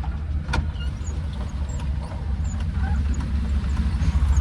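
Maruti Suzuki Eeco's engine running with a steady low rumble, and one sharp click about half a second in.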